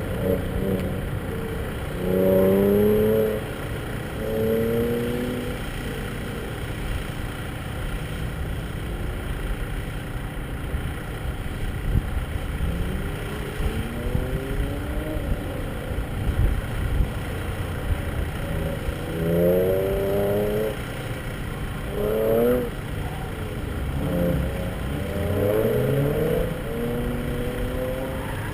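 Truck engine revving up and easing off again and again as it is driven hard through an autocross course, its pitch climbing in several sweeps. Wind rumbles steadily on a roof-mounted camera.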